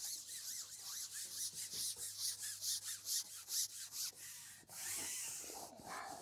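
A carbon fishing pole being shipped out hand over hand, its sections sliding through the hands: a run of short rasping rubs, about three to four a second, then a longer hiss about five seconds in.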